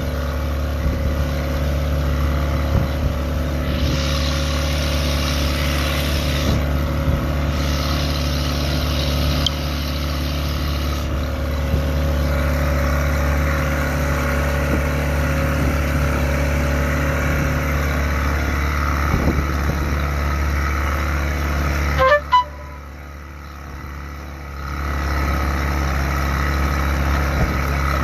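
A boat's engine running steadily, with a deep hum and a wash of noise. About 22 seconds in, a brief sharp sound comes, then the engine noise falls away for two or three seconds and comes back.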